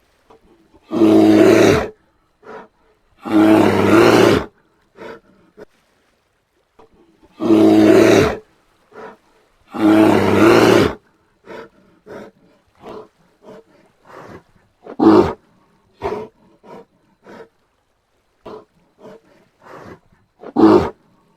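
Brown bear calling: four long, deep calls of about a second each, in two pairs, then two shorter calls further on, with many soft short sounds in between.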